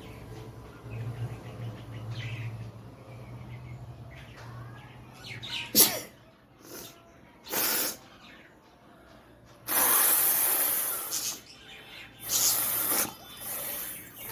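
A woman with a heavy head cold blowing her nose hard in a series of separate hissing blasts of air: a short sharp one about six seconds in, then longer ones, the longest lasting over a second about ten seconds in.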